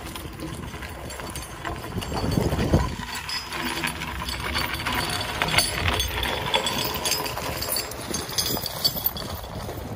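Footsteps crunching on gravel while walking, with a tractor engine idling that becomes clearer from about three seconds in.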